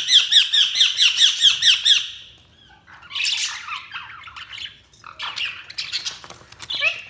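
Budgerigars calling: a fast run of repeated sharp chirps for about two seconds, then a short pause, then warbling chatter that comes back twice.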